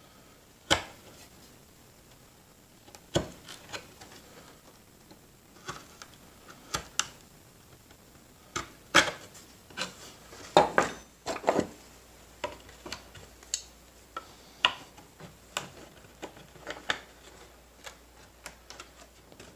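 Hand chisel cutting into pine at the corners of a routed hinge mortise, squaring them off: irregular sharp clicks and knocks of the edge biting and snapping out wood, with the loudest cluster about nine to eleven seconds in.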